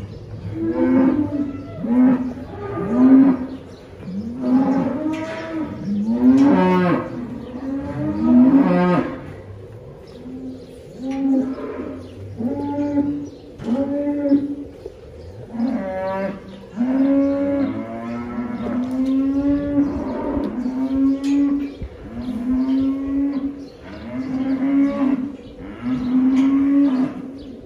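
Dairy cattle mooing over and over in short calls. For the first several seconds the calls crowd and overlap; after that they come more evenly, about one a second.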